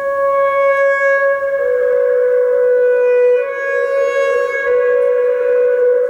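Alto saxophone holding long, steady notes that overlap one another, the main pitch stepping down a little about one and a half seconds in.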